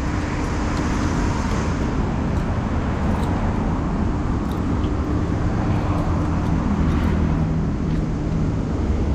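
Steady road traffic noise: vehicles running past on a city street, a mix of engine hum and tyre noise.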